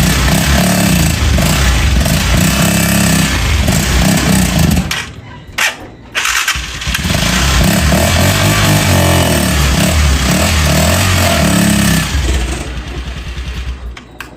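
Three-wheeled motorcycle's engine running. It drops away about five seconds in, picks up again a second later, and fades out near the end. This is a test run after the repair of a noise in third gear.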